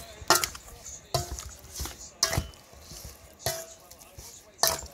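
Metal spoon knocking and clinking against a metal mixing bowl while stirring seasoned raw chicken pieces: about six sharp clinks at uneven intervals, each with a short ring.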